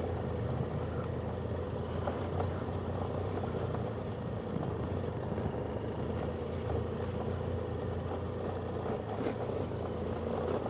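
Motorcycle engine running steadily at low speed, a constant low hum with road and wind noise from riding slowly along a rough city street.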